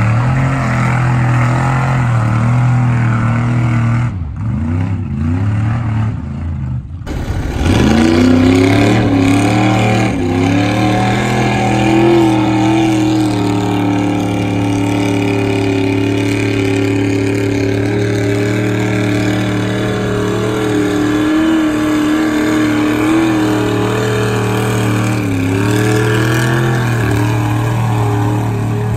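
Lifted Chevy pickup's engine revving hard under heavy load as the truck plows through deep mud and water, held at high revs with its pitch rising and dipping. The sound breaks off sharply about seven seconds in, then the engine is heard again at high revs.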